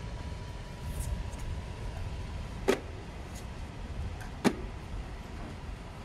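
Two sharp plastic clicks, nearly two seconds apart, as the evaporative air cooler's pull-out water tank is handled and pushed into place, over a steady low rumble.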